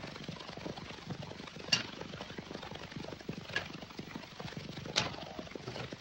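Steady hiss with scattered soft knocks and three sharp clicks spaced a second or two apart.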